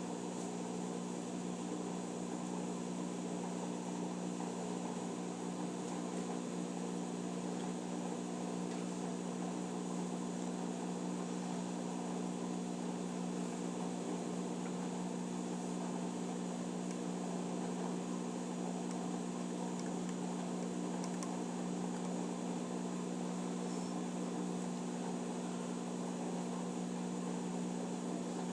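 Electrolux Eco Turbo washing machine running with a steady, even hum that does not change.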